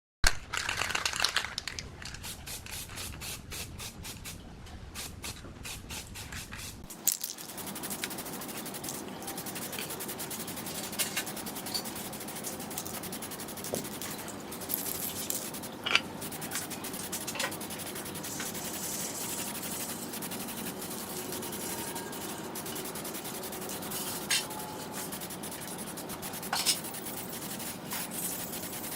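Rubbing and scraping of hand work on rusty fan parts. A quick run of scratchy strokes lasts about seven seconds, then gives way to a steadier hiss broken by occasional clicks.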